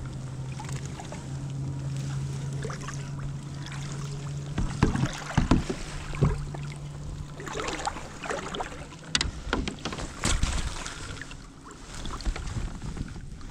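Water splashing and sloshing at a boat's side as a landing net is dipped and lifted out of the river and a sturgeon is let go, with several sharp splashes and knocks between about four and eleven seconds in. A steady low hum runs underneath and stops about halfway through.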